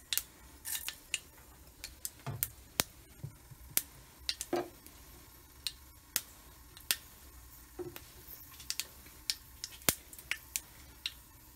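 Mustard seeds spluttering in hot sesame oil: scattered, irregular sharp pops, about one or two a second, with a few duller thuds among them. The spluttering is the cue that the oil is hot enough for tempering.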